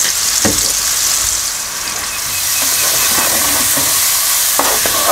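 Chopped onions sizzling in hot oil in a frying pan. A spatula knocks and scrapes through them, mostly in the second half.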